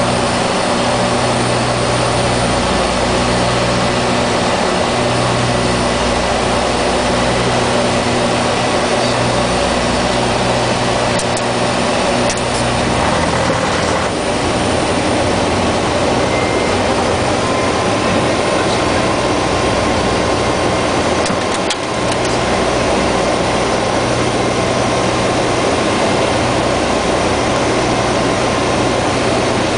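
Dash 8's twin turboprop engines and propellers droning steadily as heard in the cockpit, with a low hum that swells and fades in a slow, even beat.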